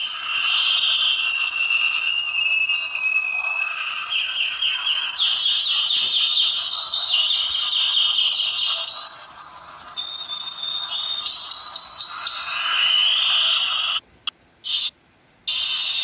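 A flock of small finches chirping and trilling together in a dense, high-pitched chorus of rapid repeated notes. It cuts out abruptly twice near the end.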